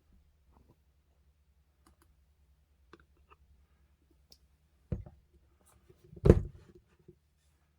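Crunchy clear slime being handled: scattered small clicks and crackles, then a heavier squish with crackling about five seconds in and a louder burst of crackles and pops about a second later.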